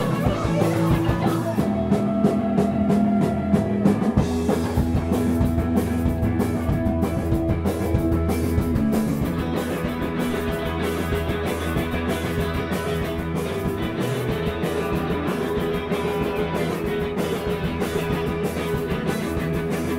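Live rock band playing an instrumental passage: electric guitars through amplifiers over a drum kit, loud and continuous.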